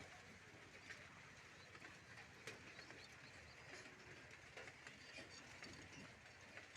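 Faint pigeon cooing with scattered light clicks, very quiet overall.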